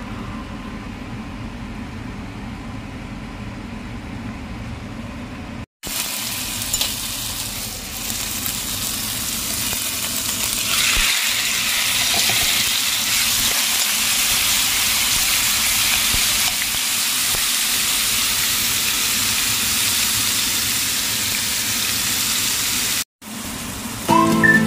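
Marinated chicken pieces sizzling in oil in a hot frying pan, a steady frying hiss that gets louder about halfway through. The first few seconds are a quieter, duller stretch before the sizzle starts.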